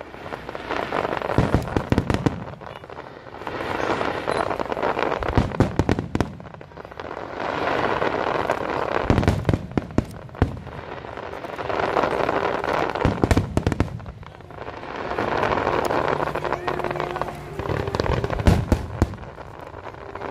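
Aerial fireworks bursting in a display: deep booms together with waves of dense crackle that swell and fade about every four seconds.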